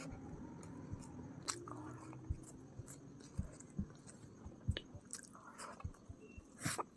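Close-up eating sounds of a person biting and chewing chicken biryani: irregular mouth clicks and soft smacks, with one louder click near the end.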